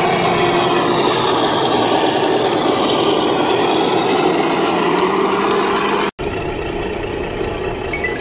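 Engine sound of a scale RC tipper truck, a diesel running steadily from its sound module. It breaks off sharply about six seconds in, then carries on quieter, with faint short beeps near the end.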